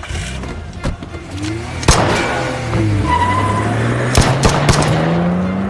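Action drama soundtrack: tense music with a handful of sharp gunshots, one about two seconds in and a quick cluster near the end, over a low tone that rises steadily in pitch.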